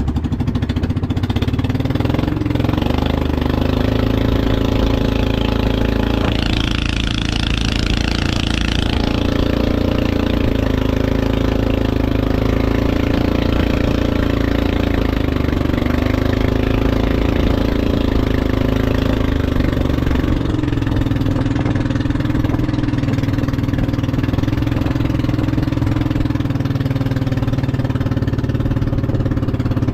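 Small boat engine running steadily, its pitch wavering slightly, with a brief rise of hiss a few seconds in.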